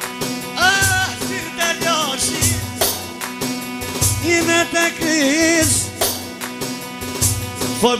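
Tallava music: ornamented melody phrases that waver and bend in pitch, over a steady drum beat and bass.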